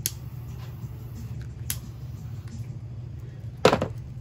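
Wires and small plastic connectors of a LiPo pack's balance leads being handled: a few light clicks, then a louder snap about three and a half seconds in, over a steady low hum.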